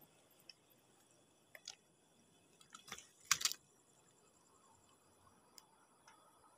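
A few short, wet crunching and splashing steps, the loudest pair about three seconds in: footsteps wading over a shallow, shelly tidal flat, with faint hiss between them.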